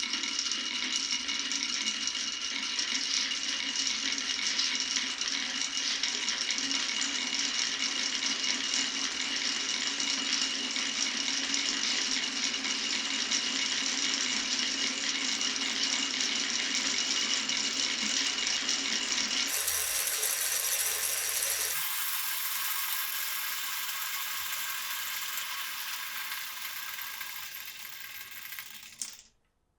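Many glass marbles rolling and clattering through a wooden marble run in a continuous rattle. The sound changes about two-thirds of the way in, then dies away and stops just before the end as the last marbles finish the course.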